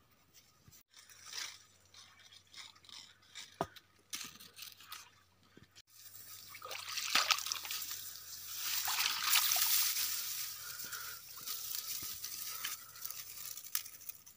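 Dry reeds and grass rustling and crackling as they are pushed through in a shallow marsh, with small drips and trickles of water. Sparse at first, then denser and louder from about six seconds in.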